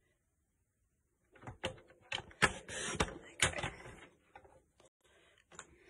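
Paper trimmer being worked and handled: after about a second of silence, a quick run of sharp plastic clicks and knocks, loudest in the middle, then a few fainter clicks.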